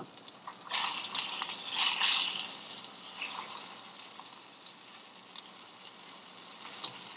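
Flour-dredged crappie fillets frying in oil and butter in a stainless skillet as they are flipped with a spatula: a click right at the start, then a loud surge of sizzling about a second in as a fillet goes back down into the hot fat, easing to a quieter sizzle with small pops.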